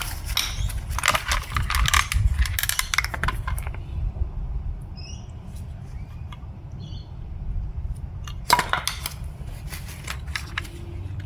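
Small metal parts of a Toyota U760E automatic transmission clinking and rattling as they are handled during teardown: quick clusters of clicks over the first few seconds, a quieter stretch, then another burst of clinks near the end.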